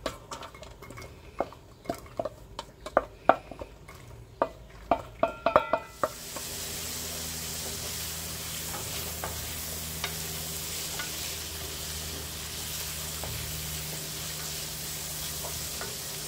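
Diced onions being tipped out of a metal bowl into a cast-iron pan, with a dozen or so sharp knocks and scrapes over the first six seconds. Then a steady sizzle as the onions fry in hot oil, stirred with a wooden spoon, being sweated until glassy.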